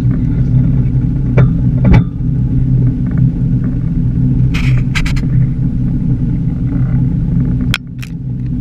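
A boat's engine running steadily with a low rumble, with a few sharp knocks and clicks of gear being handled on deck, the loudest about two seconds in. The rumble dips briefly near the end.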